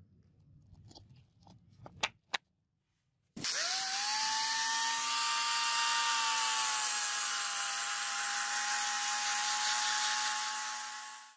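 Handheld angle grinder fitted with a 1500-grit sanding disc sanding a steel hatchet head. After a few soft handling clicks, the motor switches on about three seconds in, spins up quickly to a steady high whine over a hiss, and runs evenly for about eight seconds.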